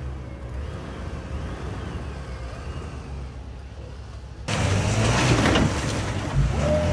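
Off-road truck engines running as the rigs drive through a muddy trail section. About four and a half seconds in, the sound turns abruptly louder and rougher.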